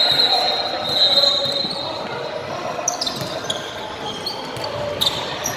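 Basketball game on a hardwood gym court: the ball bouncing, high sneaker squeaks on the floor, and voices in the background.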